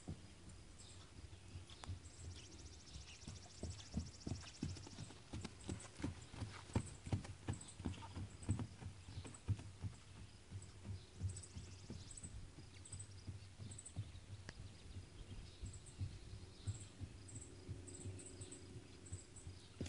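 A ridden horse's hooves striking grass turf in a steady rhythm as it moves around the paddock, with short high bird chirps over it.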